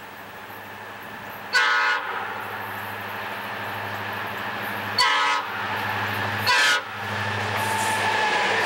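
Diesel freight locomotives approaching with a steady engine drone that grows louder, led by an SD40-2 sounding its air horn in three blasts. The first two blasts are longer and the last is the shortest.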